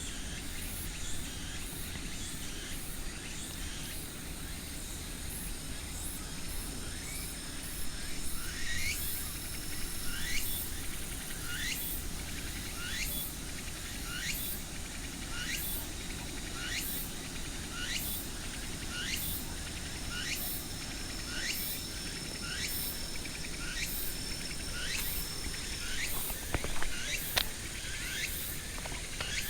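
Insects calling outdoors: a steady high-pitched trill pulsing about twice a second, joined through most of the stretch by a repeated sweeping call about once a second, over a low background rumble.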